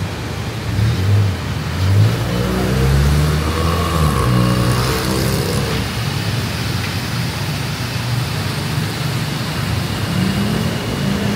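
BTS Skytrain electric train accelerating, its motor tone climbing and dropping in steps over a steady hiss; a new rising motor tone starts near the end.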